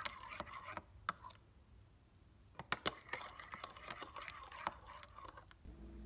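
A metal spoon stirring a watery mixture in a glass bowl, clinking and tapping irregularly against the glass, with a short pause about two seconds in.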